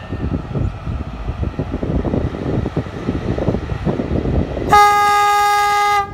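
Horn of a red CFR electric locomotive at the head of a passenger train: one loud, steady, single-pitched blast of about a second and a half near the end, cutting off sharply. Before it there is a low, uneven rumble.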